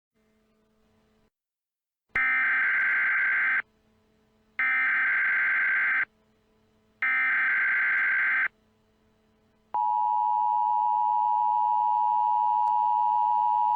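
Emergency Alert System tones: three short bursts of SAME digital header data, each about a second and a half long and evenly spaced, then the steady two-tone EAS attention signal starting about ten seconds in.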